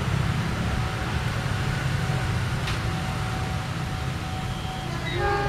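KAI diesel locomotive's engine running with a steady low rumble as the locomotive rolls slowly forward. A brief higher tone sounds near the end.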